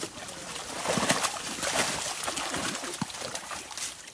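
Water splashing and sloshing, with many short, sharp splashes.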